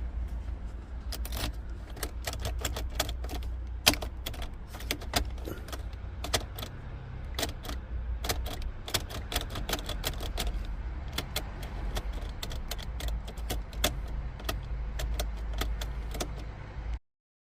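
Keys jangling with many irregular sharp metallic clicks, over a steady low hum; everything stops suddenly near the end.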